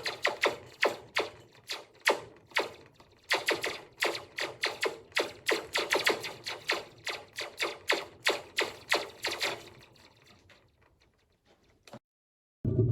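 A rhythmic run of sharp taps or clicks, about three to four a second, fading out about ten seconds in, followed by a short silence.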